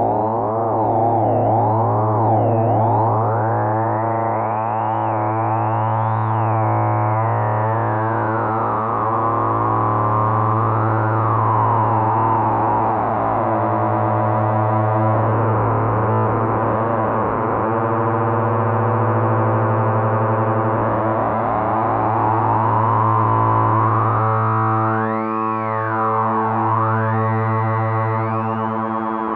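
Behringer MonoPoly analog synthesizer holding a steady low drone note, its tone sweeping up and down again and again as the filter is tweaked, with a bright resonant band gliding through the harmonics.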